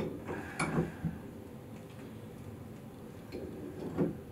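Milwaukee pipe wrench clicking and clanking on a galvanized steel pipe nipple as it is tightened into the wall fitting: a few sharp metal knocks in the first second, then again near the end as the wrench is reset on the pipe.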